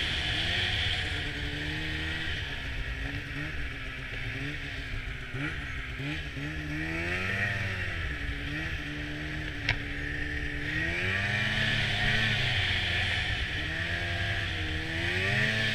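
Snowmobile engine running while riding, its pitch rising and falling as the throttle is opened and eased off, louder at the start and near the end. A single sharp click sounds about ten seconds in.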